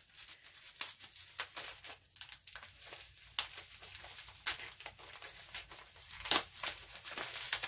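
Plastic wrapping crinkling and rustling in the hands as a small package is unwrapped, a run of irregular crackles with a few sharper ones.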